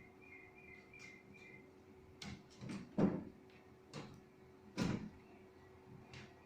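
Doors or panels of a PC-case grow cabinet being opened and closed: a run of knocks and clacks, the loudest about three seconds in, over a steady faint hum. Faint, evenly repeated bird chirps in the first second and a half.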